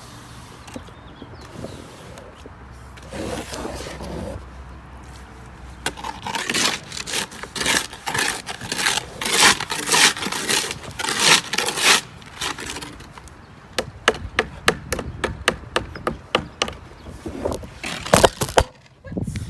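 Wet concrete being scraped and placed with a tool: repeated scraping strokes from about six seconds in, then a run of quick sharp taps. A loud clatter near the end comes as the camera tripod falls over.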